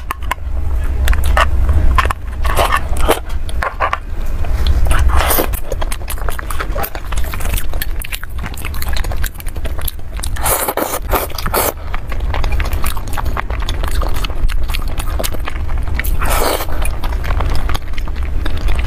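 Close-miked eating sounds: biting, chewing and wet mouth smacks with scattered clicks, first on cream cake and later on sauce-coated chicken wings, over a steady low hum.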